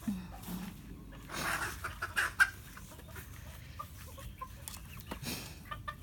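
Backyard chickens clucking in short scattered calls, with rustling and one sharp knock about two and a half seconds in.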